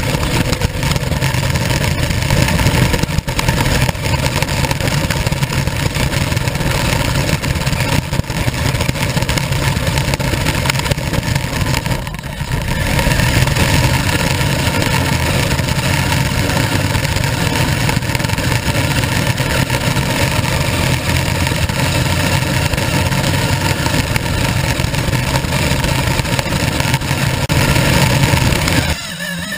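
Radio-controlled car's motor and drivetrain running as it drives over patio paving slabs, heard from a camera mounted on the car: a loud, steady, dense noise with a brief dip about twelve seconds in.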